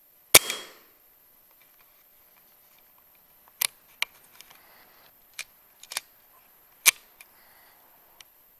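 PCP air rifle shot: a sharp crack with a short ringing tail, followed by a series of shorter, sharp clicks and clacks, one of them nearly as loud as the shot.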